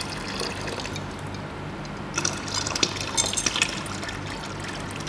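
Ice water poured from a glass beaker into a plastic bucket of water, trickling and splashing, with louder splashes about two to four seconds in. A low steady hum runs underneath.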